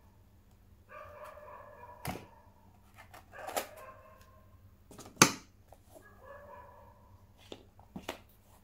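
Sharp clicks and taps of a small product's packaging being handled and pried open, the loudest about five seconds in. Drawn-out animal calls sound in the background, three times.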